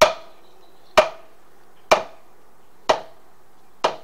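Hammer striking wood, five even blows about a second apart, each with a short ringing tail.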